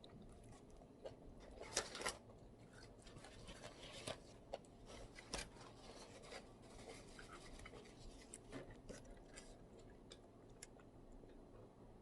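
Faint eating sounds: chewing a spicy Thai instant-noodle salad with shrimp, squid and raw vegetables, with scattered small clicks and crunches, the loudest about two seconds in.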